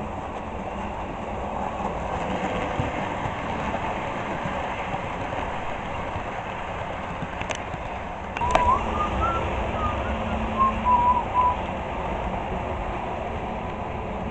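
Model railway train running along the layout track, a steady rumble of motor and wheels. About two-thirds of the way in there are two sharp clicks, then a short run of high chirping tones.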